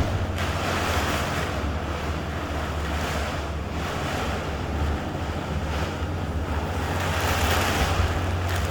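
Storm wind gusting with rain, buffeting the microphone with a heavy low rumble; the gusts swell about two seconds in and again near the end.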